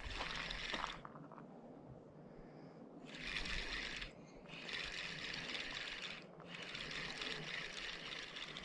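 A fishing reel being cranked to bring in a hooked trout, a steady whirring hiss in spells. It stops for about two seconds a second in, then runs on with two brief breaks.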